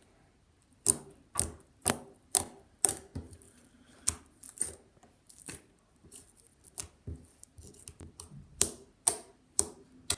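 Runny clear borax glitter slime being squished and stretched by hand, giving off a string of sharp, irregular wet clicks and pops, roughly one or two a second.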